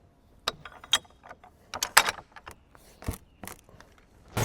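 Irregular metallic clicks and knocks of a hand-worked mechanism on the Frick sawmill's carriage, most likely its taper attachment being set. Right at the end, the mill's engine comes in suddenly with a steady low hum.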